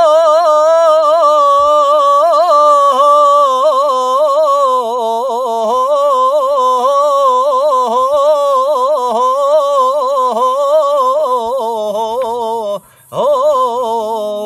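A man singing Lebanese mawwal (ataba) unaccompanied: one long held note with quick wavering ornaments, its pitch sinking slowly. It breaks off briefly near the end, then the line goes on.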